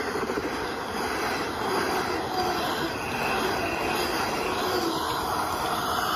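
Motorised LEGO passenger train running close past: a steady motor whir with rapid clicking of plastic wheels over plastic track.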